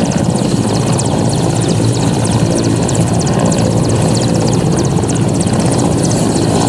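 Helicopter in flight: loud, steady rotor and engine noise with a fast, even beat.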